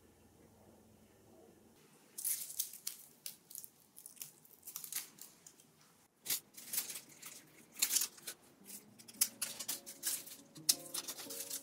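A houseplant being trimmed with pruning shears: dry leaves and stems crackling, snapping and snipping in quick irregular bursts, starting about two seconds in. Soft music comes in near the end.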